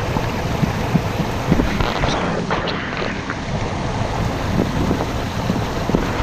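Steady rushing of a mountain stream over rocks, with small splashes and gurgles scattered through it.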